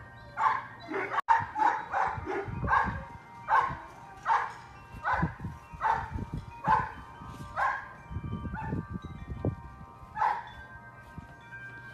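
A dog barking over and over in short, high barks, roughly one every half second to a second, thinning out near the end. A low rumbling noise sits under the barks twice.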